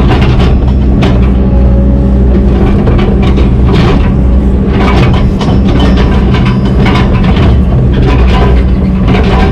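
Excavator's diesel engine running steadily under work, with irregular knocks and clanks from the machine's tracks and bucket.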